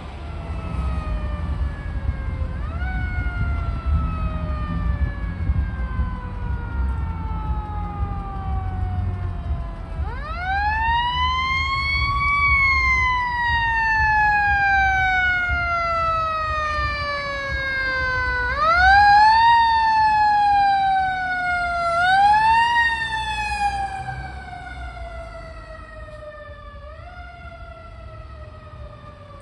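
Fire engine's mechanical Federal Q siren, spun up several times. Each time the pitch climbs quickly to a high wail and then slowly winds down over several seconds before it is pinned again. It is loudest about two-thirds of the way in and fades toward the end, with a low engine and traffic rumble beneath it early on.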